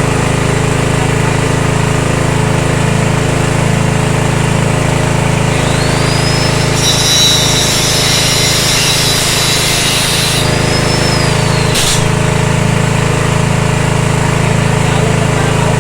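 A 7 hp petrol engine running steadily, driving an organic-waste pulping and pellet machine. A high, rasping noise joins for about three and a half seconds mid-way, and there is a sharp click near the end.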